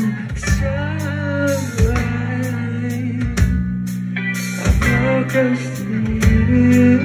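Live rock band playing loudly through a venue PA, heard from among the crowd: an electric guitar melody over a held bass line and drum hits.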